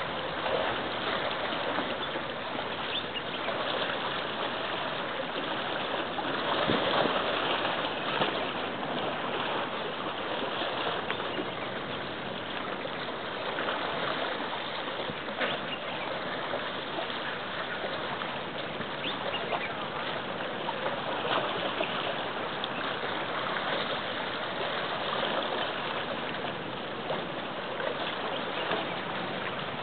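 Steady rush of sea water with small splashes.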